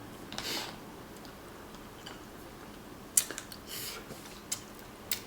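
Snow crab being eaten: a few sharp clicks of cracking shell, the loudest about three seconds in, with two short hissing sounds.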